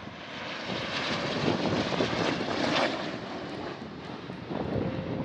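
Formation of jet aircraft passing overhead, a steady rushing engine noise that swells over the first two to three seconds and then eases off.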